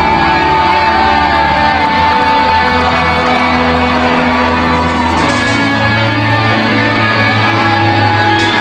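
Loud music with long held notes over a steady low drone; no firework bangs stand out above it.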